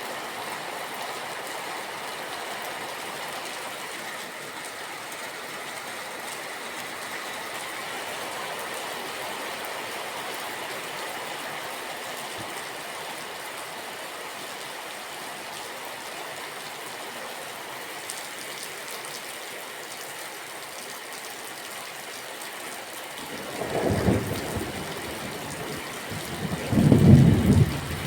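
Steady rain falling, with two low rumbles of thunder near the end, the second the louder.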